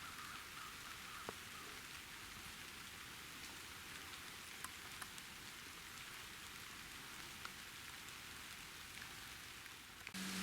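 Light rain falling steadily, a faint even patter with scattered single drops ticking. Right at the end it cuts to a louder steady hiss with a low hum.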